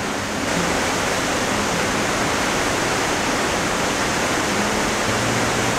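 Waterfall water rushing, a steady even roar of falling water that grows a little louder about half a second in.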